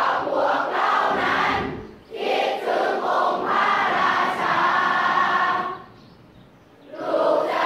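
Many voices singing together like a choir, in sung phrases with a short break about two seconds in and a longer pause near the end before the singing starts again.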